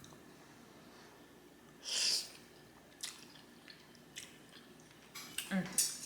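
Close-miked mouth sounds of someone eating spaghetti: quiet chewing, a short wet burst about two seconds in, and a cluster of small clicks near the end with a brief hum of voice.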